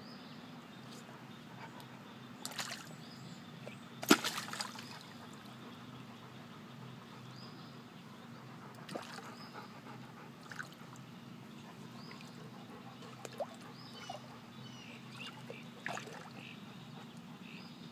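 Water sloshing and splashing around a dog standing in shallow water as she watches fish at her feet, with a sharp splash about four seconds in, the loudest sound, and several smaller splashes after it. A steady low hum runs underneath.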